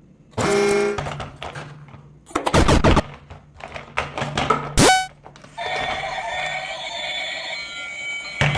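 A string of short sound effects, a brief pitched sound, a loud burst and then a sharp hit, followed about halfway through by steady background music.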